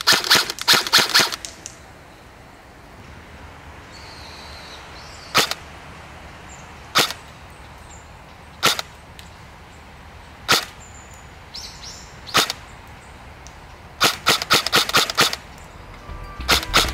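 Airsoft electric gun (M4/M16-type AEG) firing on semi-automatic. A quick cluster of shots comes first, then single shots about every second and a half, then a fast string of about nine shots near the end. That last string comes from a gun with an electronic trigger, whose trigger follows rapid pulls closely.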